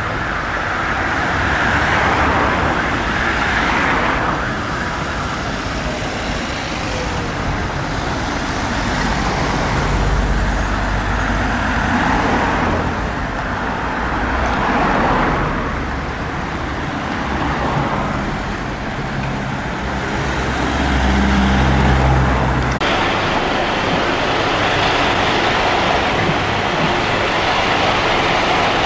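Town-centre road traffic: cars and heavier vehicles passing and idling, their engine and tyre noise swelling and fading every few seconds, with a deeper engine rumble twice. About 23 s in it changes suddenly to a steadier, even traffic noise.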